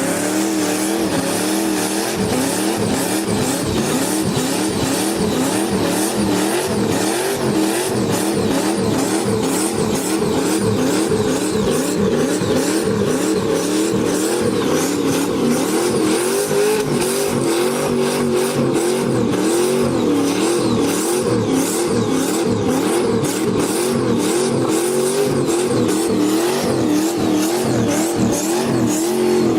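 Turbocharged Toyota 1UZ V8 under heavy throttle, its revs swinging up and down about once a second during a burnout.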